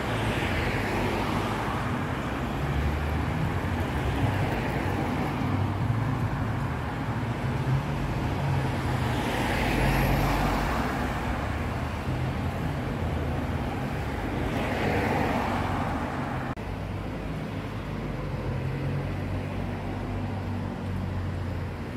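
Road traffic on a town street: cars driving past one after another, their tyre and engine noise swelling and fading with each pass over a low steady rumble, the loudest pass about ten seconds in.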